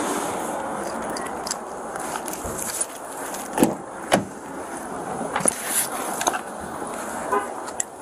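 Handling noises as bags are loaded into a car: a few sharp clicks and knocks, the loudest two about three and a half and four seconds in, over a steady rushing background.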